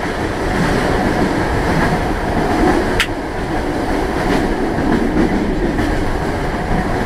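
Steady running noise of a passenger train heard from inside the carriage, with a single sharp click about three seconds in.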